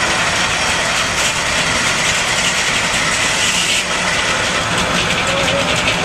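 Sawmill's power engine running steadily at idle, with mechanical clatter from the mill; about two-thirds of the way through, a fast, fine rattle comes in.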